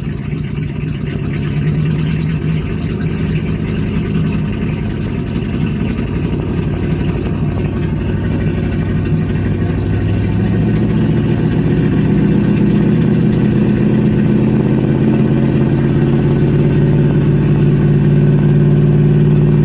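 1985 Chevrolet Suburban's gasoline V8 with a Quadrajet carburettor running just after a cold start, given a little throttle: the engine note steps up about a second and a half in and again about halfway through, then holds at a higher, louder speed.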